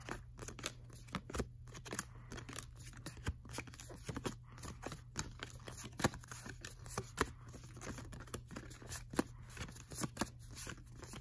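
Baseball cards being slid and flicked off a handheld stack one after another: an irregular run of short, light card-stock snaps and rustles, several a second, over a faint steady low hum.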